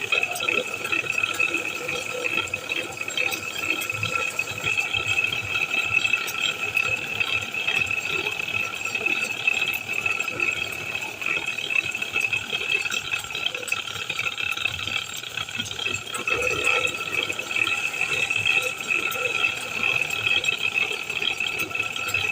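Woodturning lathe's electric motor running steadily with a high whine, over a continuous rattling, crackly noise.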